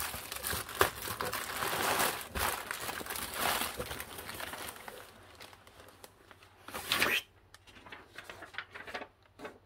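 Plastic air-cushion packing crinkling and rustling as it is handled and pulled out of a cardboard box, busy with small crackles for the first few seconds, then quieter, with one short louder rustle about seven seconds in.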